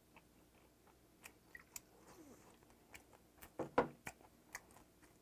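Close-miked chewing of grilled gizzard shad, with small crunches and wet mouth clicks. A louder knock comes about three and a half seconds in.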